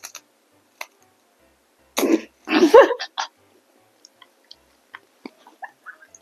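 Close-miked eating-ASMR mouth sounds: scattered small clicks and smacks, with a loud two-part cough or throat-clear into the microphone about two seconds in.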